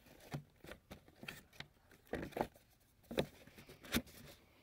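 Cardboard box and paper leaflets being handled and pulled out: scattered crinkles, rustles and light knocks, the sharpest about two, three and four seconds in.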